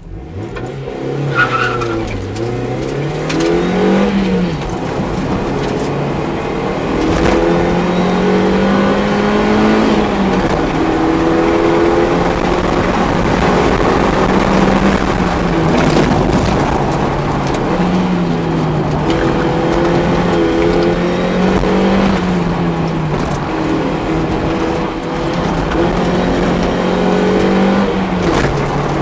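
Mazda Miata's stock 1.6-litre four-cylinder engine with a Racing Beat intake, heard from inside the cabin during an autocross run. The engine note repeatedly climbs and drops as the car accelerates and slows between the cones.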